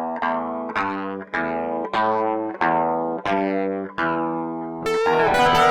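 Background music: a guitar with effects playing ringing picked chords, struck about once every half second, turning to a brighter, wavering passage near the end.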